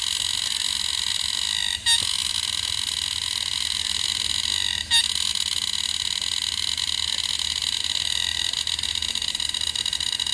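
Green cicada singing, a male's calling song to attract a mate: a steady, high, ringing buzz. It breaks off for a moment twice, then turns into a rapid pulsing near the end.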